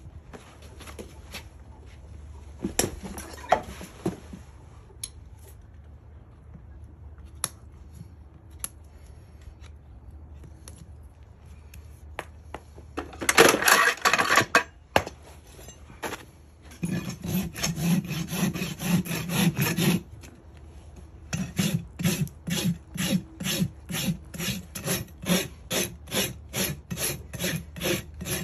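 Farrier's rasp filing a horse's hoof wall above a nailed-on shoe. Scattered tool clicks and taps come first, then a loud burst of rasping about halfway, a few seconds of continuous rubbing, and from about three-quarters through, steady back-and-forth strokes about two a second.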